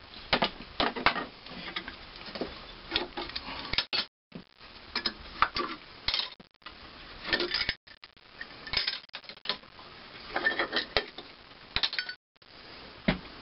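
Scattered metal clinks and knocks as steel C-clamps and a cast-iron valve part are handled and taken off the milling machine's angle plate.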